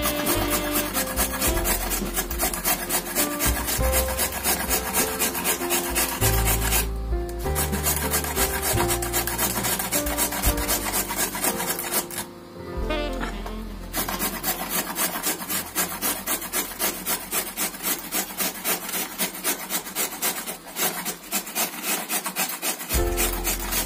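Carrot being grated on a metal box grater: repeated rasping strokes at about three a second, with two short pauses, over background music.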